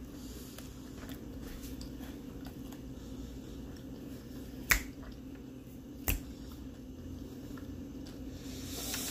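Two sharp clicks about a second and a half apart near the middle, over a steady low hum: a metal spoon knocking against a ceramic cereal bowl during eating.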